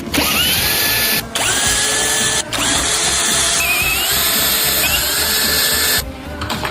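Cordless power tool running in several bursts, each spinning up with a rising whine, then stopping about six seconds in, as it works fasteners during an engine teardown.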